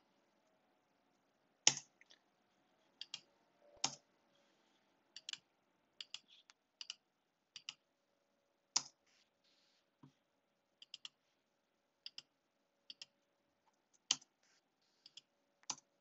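Sparse, sharp clicks of a computer mouse and keyboard, one or two at a time at irregular intervals.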